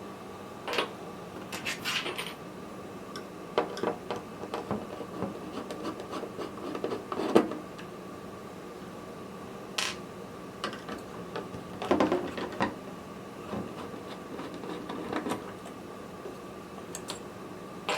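Heatsink mounting bracket being unscrewed and handled on a motherboard: scattered clicks, small knocks and scraping rubs of tools and metal parts, over a faint steady hum.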